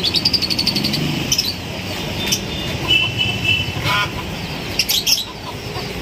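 Caged birds chirping and calling. A quick run of high chirps comes at the start, a held whistle-like call about three seconds in, and more short calls near the end, over a low steady rumble.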